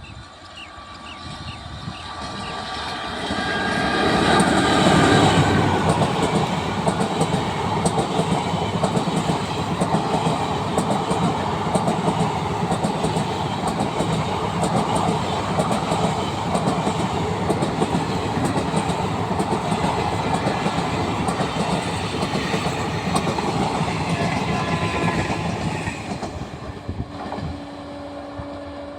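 A train passing at speed. The noise builds over the first few seconds and is loudest about five seconds in. About twenty seconds of steady rumble follow, with rapid clicking of wheels over rail joints, before it drops away near the end.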